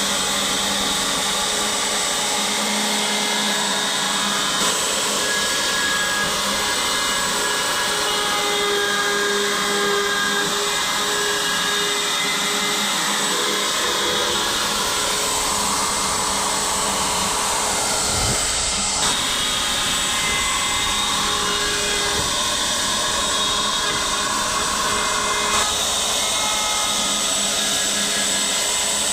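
Ryobi electric router running steadily at speed, routing wood corners to round them off, with a continuous high-speed motor whine.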